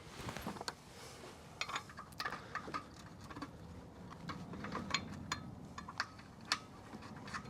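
Irregular metallic clinks and taps of steel bolts being handled and set into the tongue jack's mounting holes on the trailer tongue, some with a short ring.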